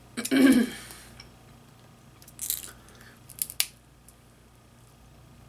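Close-miked eating sounds: a short vocal sound near the start, then a few sharp clicks and crackles of chewing seafood.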